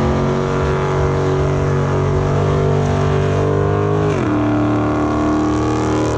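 A car's engine held at high revs during a burnout, its rear tyres spinning on the pavement. About four seconds in, the engine note drops to a lower pitch and holds steady there.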